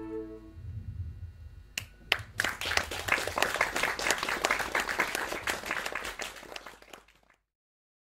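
The final held chord of a flute ensemble with keyboard dies away, then after a couple of single claps the audience breaks into applause for about five seconds before the sound cuts off suddenly.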